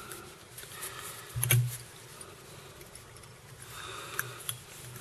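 Quiet handling sounds of fly tying at a vise: small clicks and rustles, with one louder knock about a second and a half in and two light clicks near the end.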